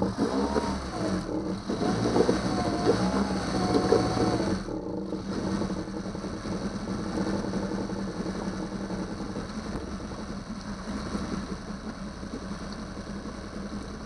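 Single-cylinder four-stroke engine of a 2009 Yamaha 6 hp outboard running in a test barrel, revved up and down for about the first four and a half seconds, then settling into a steady idle. It is running well after the no-start troubleshooting.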